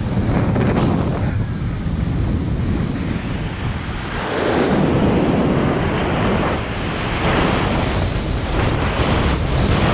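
Strong wind buffeting the microphone with rushing, splashing water, surging louder from about four seconds in.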